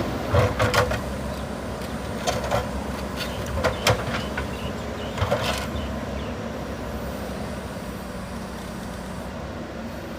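JCB 3DX backhoe loader's diesel engine running steadily while the bucket works broken concrete, giving four pairs of sharp knocks in the first six seconds, after which only the engine is heard.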